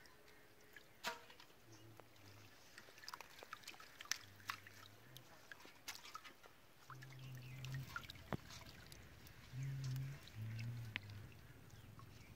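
Water splashing, trickling and dripping in a shallow pool held in a fine-mesh fishing net as hands grope through it, with many small sharp splashes and ticks. Short, low animal calls repeat in the background, several of them in the second half.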